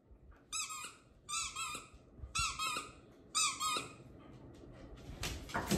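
Squeaky dog toy squeezed four times, about once a second, each squeeze giving a two-part squeak.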